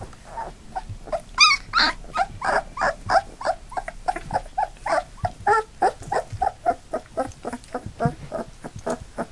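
Nearly three-week-old black Labrador puppies crying, a rapid series of short high-pitched whines and yelps, about three or four a second, starting about half a second in, with one sharp rising squeal early on.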